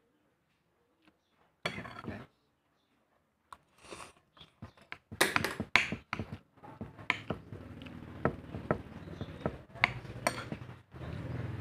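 A metal spoon clinking and scraping on a plate as food is scooped up and eaten, in scattered sharp clicks with short mouth and eating noises between them. A low steady hum comes in about halfway through.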